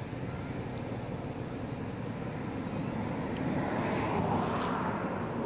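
Steady outdoor rumble of distant engine noise, swelling about three and a half seconds in and easing off near the end, as of a vehicle passing at a distance.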